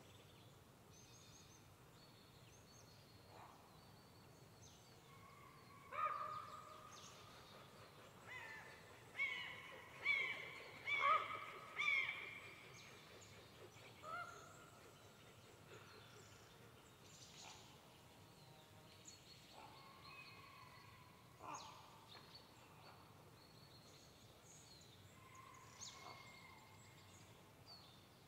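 Crows cawing: a run of short harsh calls, about one a second at their busiest in the middle, then a few scattered caws later. Faint high chirps of small birds sit over a quiet forest background.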